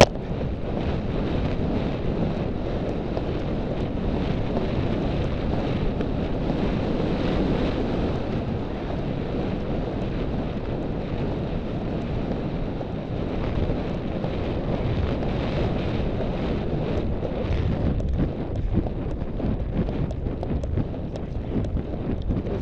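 Steady wind noise buffeting the microphone of a rider-mounted camera as the horse gallops across open ground, with the horse's hoofbeats faintly underneath, plainer near the end.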